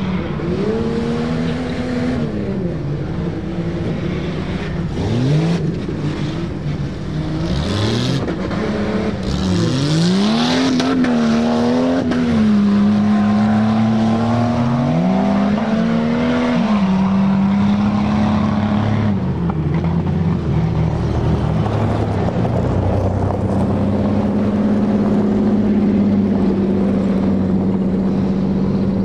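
Four-wheel-drive tuff truck's engine revving hard: the pitch climbs and drops back again and again, then is held steady at high revs for long stretches.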